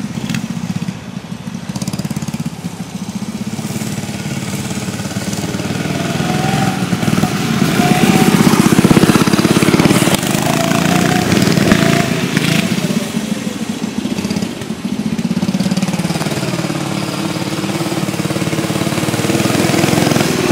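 Small mini bike engine running under riding, its speed and loudness rising and falling, loudest about halfway through.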